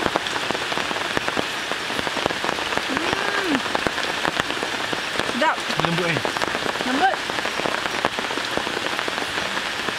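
Steady rain falling, with many distinct drop impacts on a surface.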